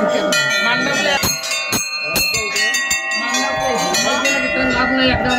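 Brass temple bells hung along a railing, rung by hand over and over, their strikes overlapping and each one ringing on.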